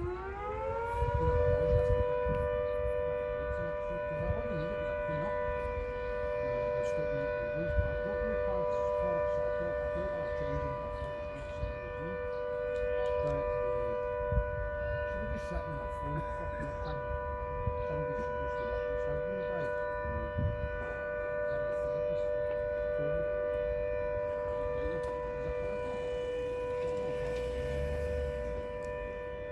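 Carstairs State Hospital warning siren on its monthly test. It winds up in pitch over the first second or two, then holds one steady two-note tone.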